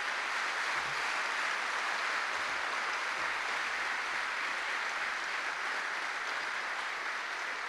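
Audience applauding steadily: a dense, even clapping.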